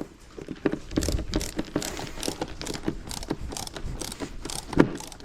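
Screws and plastic resin shed panels being worked by hand: an irregular run of quick clicks and light knocks, with a sharper knock near the end.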